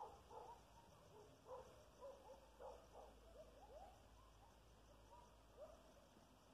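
Faint, distant pack of coyotes yipping and howling: a run of overlapping yips and short wavering howls that thins out after about four seconds to a few single rising howls.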